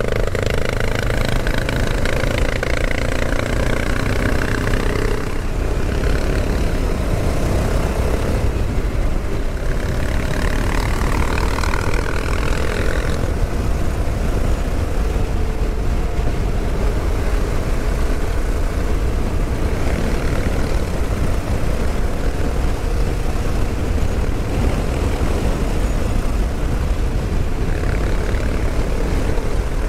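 Honda XL 600 single-cylinder four-stroke motorcycle engine heard from the rider's seat under way, with heavy wind noise on the microphone. The engine note climbs twice under hard acceleration, around the second second and again around the tenth, each time dropping off suddenly as the rider shifts or closes the throttle.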